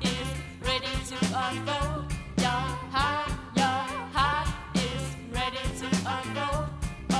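Live band playing an upbeat song: several singers singing over a drum kit keeping a steady beat and low bass notes.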